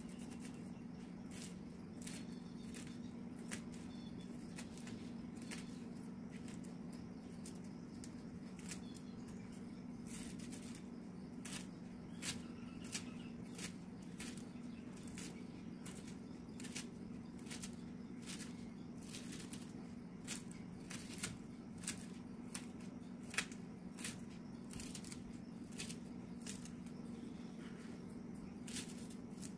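Knife chopping banana flower florets on a wooden cutting board: irregular sharp clicks of the blade striking the board, coming faster and louder from about ten seconds in, over a steady low hum.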